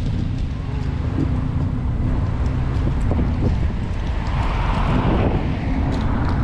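Wind buffeting the microphone of a moving vehicle, over a low steady engine drone. About four seconds in an oncoming car passes, its noise swelling and then fading.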